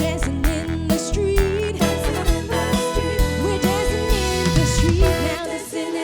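Upbeat Motown-style soul song with a singing voice, bass, guitar and a steady beat; the music drops out near the end.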